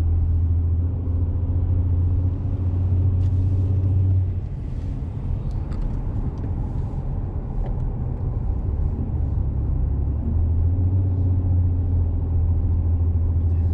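Pickup truck driving: a steady low engine and road drone that eases off about four seconds in and builds again about ten seconds in.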